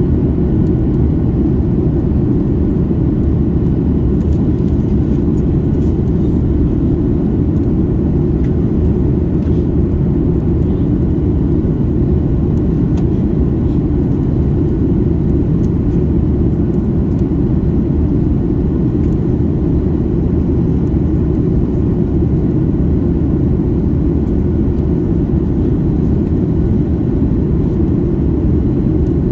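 Steady low rumble inside the cabin of a Boeing 737 MAX 8 in descent: airflow over the fuselage and the drone of its CFM LEAP-1B engines, heard from a seat by the wing.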